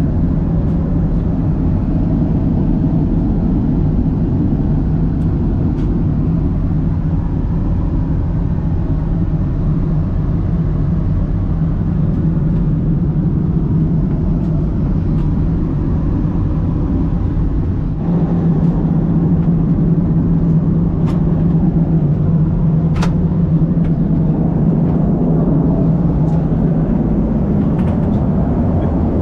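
Airbus A330-300 cabin noise in flight: a steady rush of airflow and engine drone with a low hum, growing a little louder about eighteen seconds in. A few faint clicks sound over it.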